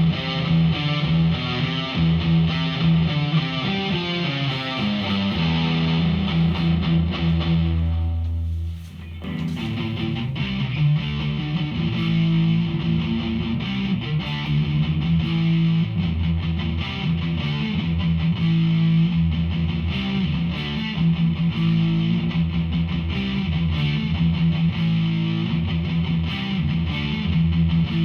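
Electric guitar played through a Behringer V-AMP PRO amp-modelling processor on a distorted preset, with low sustained notes and riffing. The playing breaks off briefly about nine seconds in, then carries on.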